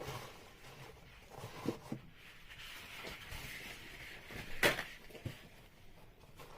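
Paper serviette rustling as it is spread over a bowl of dough, with a few light handling knocks and one sharper knock a little before five seconds in.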